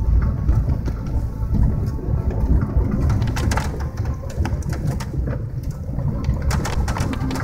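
Vehicle driving slowly on a snow- and ice-covered road, heard from inside the cabin: a steady low rumble. From about three seconds in come frequent sharp clicks and crackles as the tyres run over broken ice and fallen twigs.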